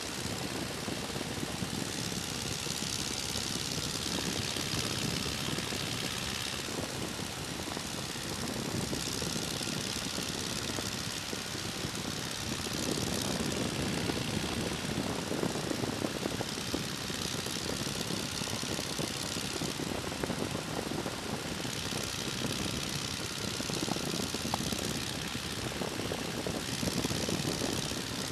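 De Havilland Tiger Moth biplane in cruising flight: steady drone of its four-cylinder inverted inline engine and propeller, mixed with wind rushing through the open cockpit. The hiss of the wind swells and eases every few seconds.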